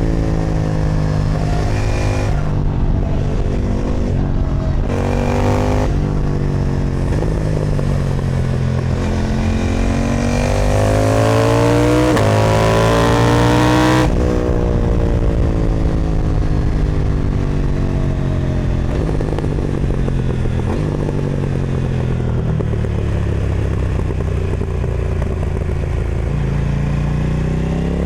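KTM 990 Duke's parallel-twin, running through an Austin Racing exhaust, revving up and down through the gears under way. Several quick shifts come in the first few seconds. About halfway the revs climb in one long pull and then drop suddenly, falling away slowly before climbing again near the end.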